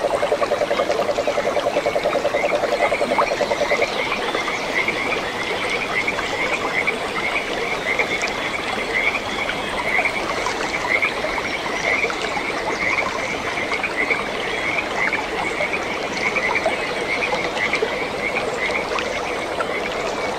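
Frogs calling over running water: a low, fast-pulsing trill stops about four seconds in, while a higher, short call repeats steadily.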